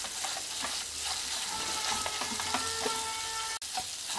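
Wooden spatula stirring and pressing moong dal paste as it fries in ghee in a coated pan: a steady sizzle with repeated scraping strokes against the pan. The ghee is starting to seep out of the dal, the sign that the roasting is well along.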